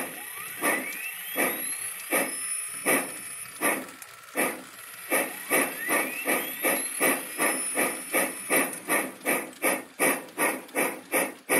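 Steam locomotive exhaust chuffing, the beats slow at first and quickening steadily as the train picks up speed, reaching about three chuffs a second by the end.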